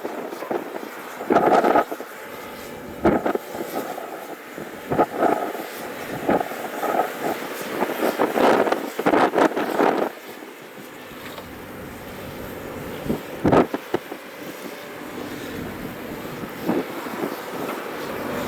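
Doosan DX300 excavator at work: its diesel engine running under load with irregular knocks and clatters, the loudest cluster from about eight to ten seconds in and another sharp one near thirteen and a half seconds.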